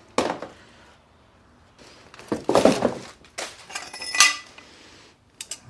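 New steel exhaust parts (catalytic converter and pipe) knocking and clinking as they are set down and handled, with a rattling stretch in the middle. One knock, a little after four seconds in, rings briefly like struck metal.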